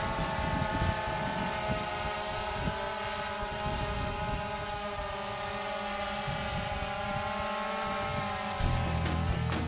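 DJI Phantom quadcopter hovering, its four propellers making a steady, many-toned buzzing whine that wavers slightly in pitch. Music comes in near the end.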